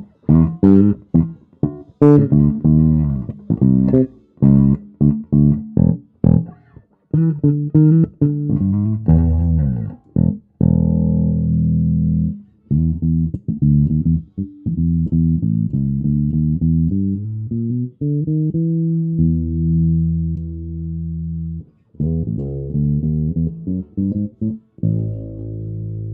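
Fujigen FGN NJB200RAL electric bass with Seymour Duncan SJB-1 Jazz Bass pickups, played solo. For about the first ten seconds it plays a quick run of short, clipped notes with silence between them, then switches to longer, ringing held notes.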